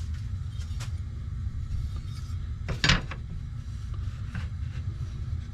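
Light knocks and clinks of a metal speed square being handled and set against the wood, with one sharp clink about three seconds in, over a steady low hum.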